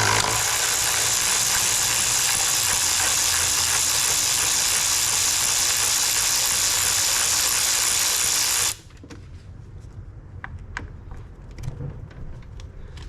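Power drill running steadily for about nine seconds while backing out screws, then stopping abruptly, followed by a few light clicks.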